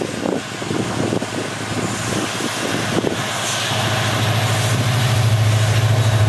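WDP4D diesel-electric locomotive's 16-cylinder two-stroke EMD engine approaching and passing close by, growing louder throughout. Irregular knocks in the first half give way to a deep, steady engine drone about four seconds in as the locomotive draws alongside.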